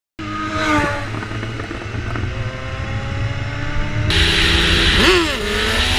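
Sport motorcycle engine running at speed with wind noise: under a second in its pitch drops, then climbs slowly as it pulls. After a cut about four seconds in, another sport bike's engine with stronger wind rush, and a quick rev a second later that rises sharply and falls back.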